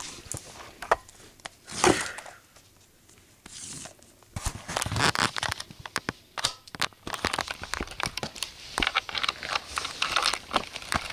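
Rustling and crinkling with many light clicks and taps, the handling noise of small plastic Littlest Pet Shop figurines being moved along a play set. It goes almost quiet for a couple of seconds about two seconds in.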